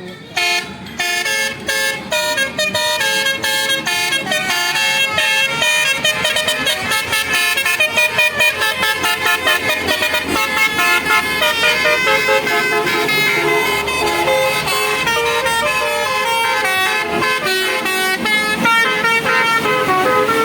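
Tour bus's Basuri multi-tone 'telolet' horn playing a loud, continuous melody of quick stepped notes. It starts about half a second in, with a fast run of short repeated notes midway.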